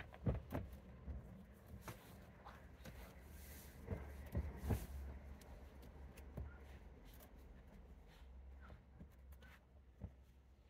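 Soft scattered knocks, taps and rustles of hands pressing fresh potting soil down around a young spruce in a bonsai pot, over a faint low rumble midway.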